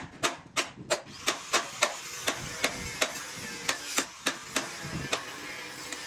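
Sharp, evenly spaced knocks, about three a second, from hand work on a steel rebar cage, growing fainter toward the end over a steady hiss.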